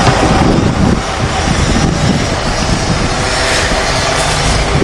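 Loud, steady vehicle noise: a motor running close by, with a constant hiss over it.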